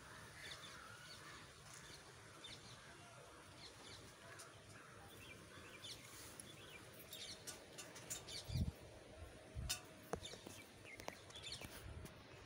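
Birds chirping faintly in open country, short scattered chirps over a quiet outdoor hush. About two-thirds of the way through come a couple of dull low knocks.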